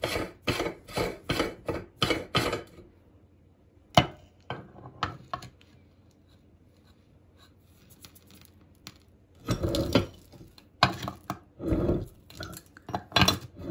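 Metal hand meat grinder being taken apart, with cornflake grit in its parts. First comes a run of even gritty metal scrapes, about two a second, which stops after two and a half seconds. A sharp metal click follows about four seconds in, and near the end come clinks and clatter as the perforated die plate and cross-shaped cutting blade are pulled out.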